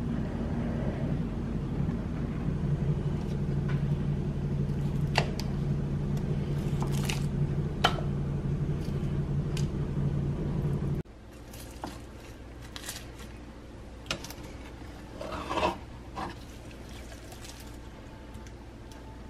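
A steady low hum with a couple of sharp clicks. It cuts off abruptly about eleven seconds in, giving way to quieter kitchen handling: a knife cutting and scraping through a frosted dessert in a foil-lined pan and food being served from a skillet, with scattered clicks and clinks.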